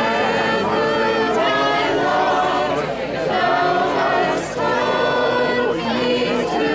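A small group of mostly women's voices singing a hymn together a cappella, holding long notes.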